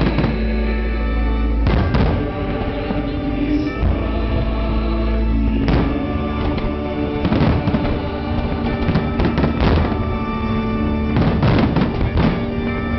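Aerial fireworks bursting in a series of sharp bangs, single ones every few seconds and then quick clusters near the middle and the end, over loud music with long held notes.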